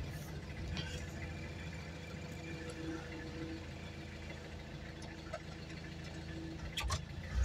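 Vehicle engine running low and steady at slow speed, heard from inside the cabin, with a single sharp click near the end.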